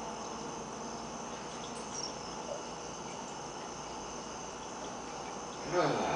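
Steady room noise: a low hiss with a thin, steady high-pitched whine. Near the end comes a brief, louder cry that falls in pitch.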